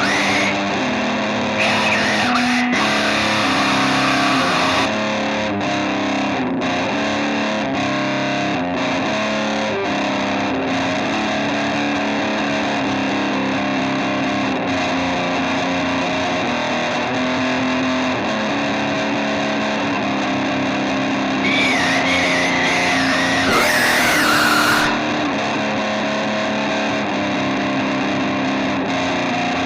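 Instrumental passage of distorted electric guitar rock music, with a high gliding lead line standing out for a few seconds in the last third.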